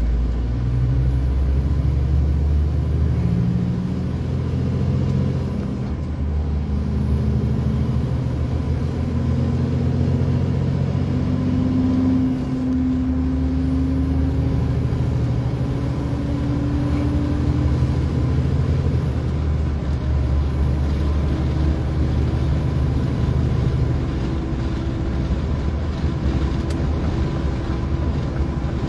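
Lorry's diesel engine heard from inside the cab, pulling under load. Its pitch climbs and drops back at each gear change about three times, then holds steady, with a faint high whistle rising and falling along with it.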